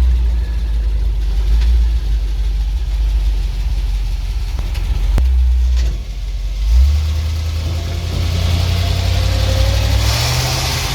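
ZIL truck engine running while the truck is driven: a steady low drone that dips briefly about six seconds in and comes back at a higher pitch, with road and wind noise growing louder near the end.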